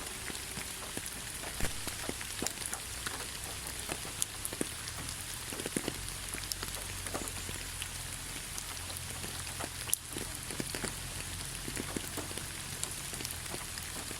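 Steady rain falling, a continuous hiss with many separate drops pattering on a surface and a few louder drips.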